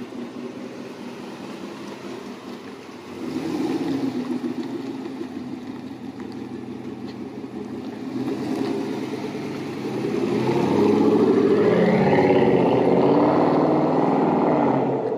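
A GMC Sierra's 6.2-litre V8 running through a Borla S-Type cat-back exhaust: idling, revved up about three seconds in, and revving up again and getting louder from about ten seconds as the truck pulls away.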